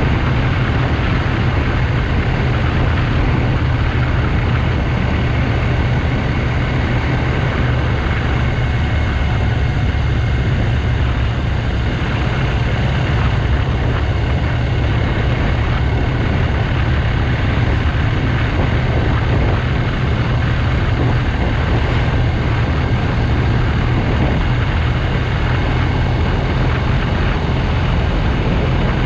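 BMW R1200GS Adventure's boxer-twin engine running steadily at a constant cruise, picked up by a bike-mounted camera, with an even rush of wind and road noise over it.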